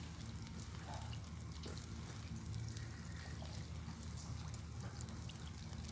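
Heavy rain pouring down, with many individual drops ticking close by over a steady low rumble.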